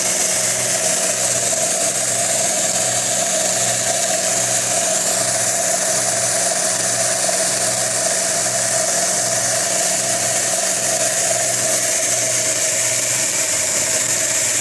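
Homemade belt sander, driven by an old bandsaw motor, running freely at steady speed. Its low hum has a regular beat about once or twice a second, over a steady whine and a high hiss.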